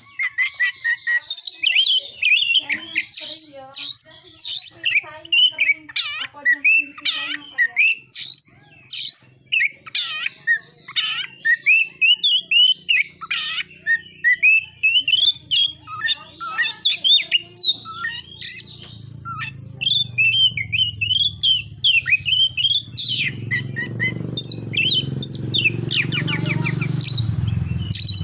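Oriental magpie-robin (kacer) singing a rapid, varied string of chirps, whistles and trills without pause. About two-thirds of the way in, a low rumble builds up beneath the song.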